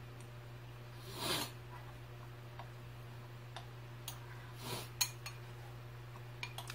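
Metal spoon clicking several times against a ceramic cereal bowl, faint, with two short soft eating noises about a second in and near five seconds in.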